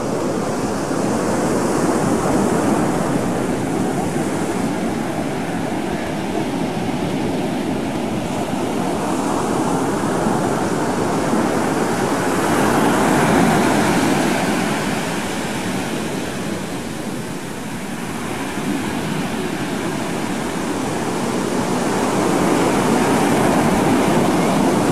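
Ocean surf breaking on a sandy beach: a steady rush that swells and ebbs, loudest about halfway through and again near the end.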